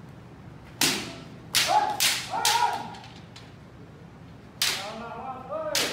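Kendo fencing: bamboo shinai striking sharply, about six cracks in bursts, with the fencers' loud kiai shouts between the blows.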